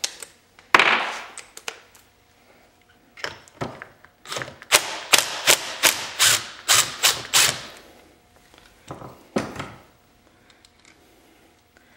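Cordless impact wrench loosening a 12 mm nut on a motorcycle crankcase, in a run of about a dozen short bursts, about three a second, with single bursts before and after.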